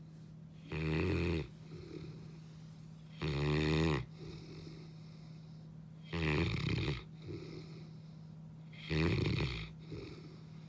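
Saint Bernard dog snoring in deep sleep: four loud, rasping snores about every two and a half seconds, each followed by a quieter breath.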